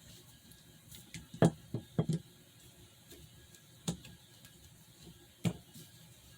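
Sharp knocks and clicks of a combination whetstone being handled, turned over and set back down on a hard surface: a quick cluster of four about a second and a half in, then two single knocks later.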